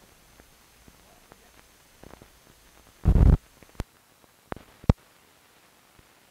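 Run-out of an old film soundtrack over blank leader: faint hiss with scattered clicks. About three seconds in comes a short, loud thump, followed by three sharp pops.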